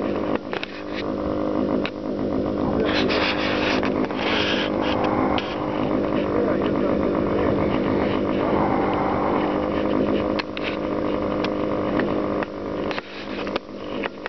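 Engine of a large radio-controlled P-51 Mustang model running steadily on the ground, spinning its propeller while the plane is held by the tail.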